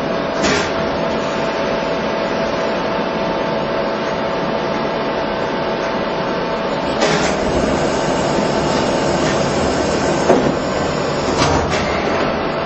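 Heckert CW 1000 horizontal machining centre running: a steady mechanical hum with a faint steady whine, a click about half a second in, then a louder hiss from about seven seconds that stops shortly before the end, with a few knocks.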